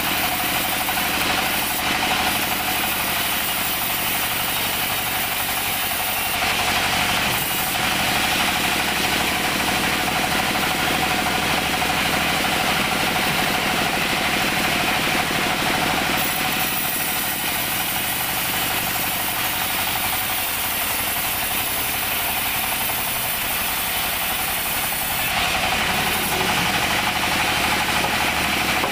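Band sawmill running steadily while its blade rips a teak beam lengthwise. A high-pitched cutting hiss grows louder at times over the steady machine noise as the beam is fed through.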